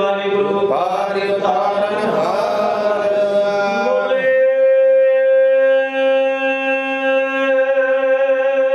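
A man's voice chanting a devotional line through a microphone, sliding between notes for the first few seconds, then holding one long steady note from about four seconds in.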